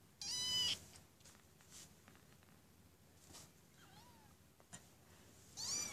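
Kitten mewing: a short, high-pitched mew about a quarter second in, a faint one around four seconds, and a rising-then-falling mew near the end.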